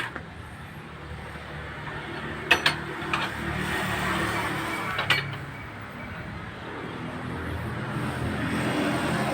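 Heavy machinery, an excavator, running with a steady engine drone, with a few sharp metal clanks around two and a half and five seconds in.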